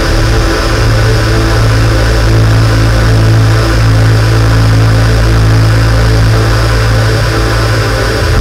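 Live electronic music from synthesizers, among them a Korg keyboard: a loud, sustained low bass drone with layered held tones above it. The bass note shifts about half a second in and again near the end.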